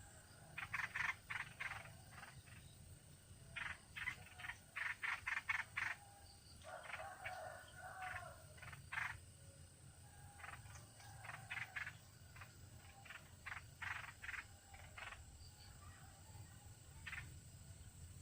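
An animal calling in rapid runs of short, sharp notes, several a second, with pauses between the runs.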